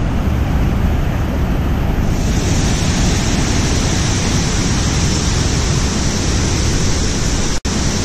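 Waterfall roar: a steady, loud rushing of falling water. The hiss brightens about two seconds in and cuts out for an instant near the end.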